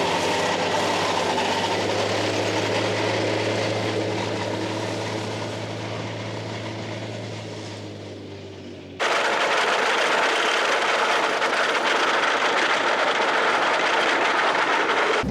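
A steady engine hum that fades away over about nine seconds, then a sudden cut to the steady rushing noise of a vehicle on the move.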